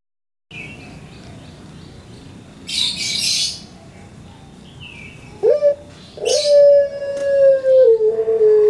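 Ringneck dove (puter) cooing: a short note about five and a half seconds in, then a long, drawn-out coo that sags slightly in pitch. Two short bursts of high hiss come before and at the start of the long coo.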